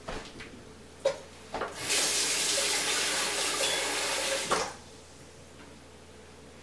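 Kitchen tap running in a steady stream for about three seconds, then shut off, with a couple of light clicks just before it starts.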